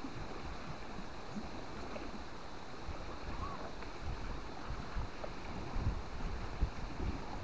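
Wind noise on the microphone: a steady rushing hiss with irregular low thumps, which come more often near the end.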